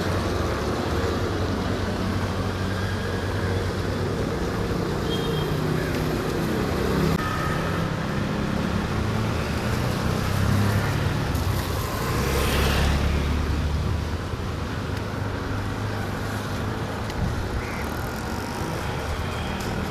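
Road traffic: vehicle engines running steadily, with one vehicle passing close and swooshing by about twelve seconds in.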